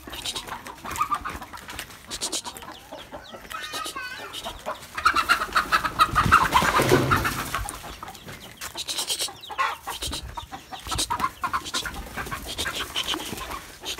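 Chickens squawking and clucking in alarm as a dog chases them, loudest for a few seconds from about five seconds in, over hurried footsteps through dry leaf litter.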